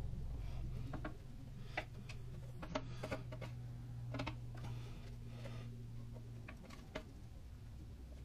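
Scattered light ticks and taps as coconut coir is fed through a funnel into a clear plastic worm bin, over a low steady hum that stops about six and a half seconds in.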